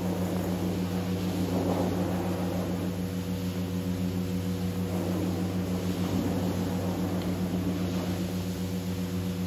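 Steady low mechanical hum made of several even tones, unchanging throughout.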